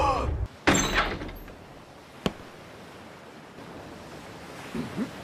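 Animated sound effects of a man collapsing onto a wooden ship's deck: a thud just under a second in, then a single sharp knock a little after two seconds, over a faint steady hiss.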